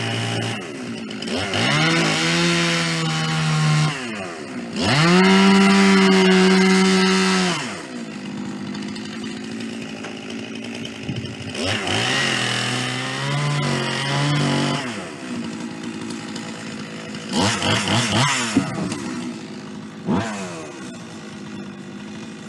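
Two-stroke chainsaw on a chainsaw mill attachment ripping a white pine log, its engine surging at high throttle and easing off several times, the pitch rising and falling. It is loudest about five to seven and a half seconds in, with a few short revs near the end.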